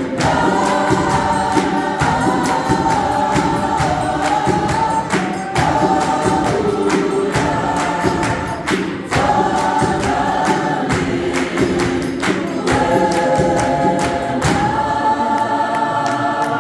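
Gospel choir singing in harmony, holding long chords, over a steady beat of sharp hand claps in clap-and-tap style; the sound begins to fade near the end.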